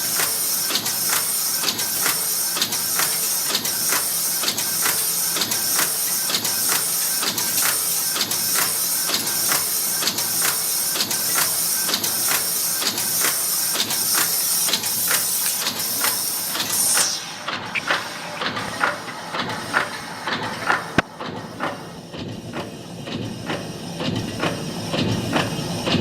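Yeswin YBF13B6S six-station bolt former (cold header) running, its strokes coming in a steady, even rhythm under a high hiss. About two-thirds of the way through the hiss stops while the strokes continue.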